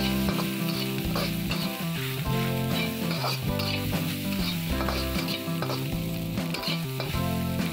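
Metal spatula scraping and tossing fried rice around a hot wok in quick repeated strokes, over a steady sizzle of frying.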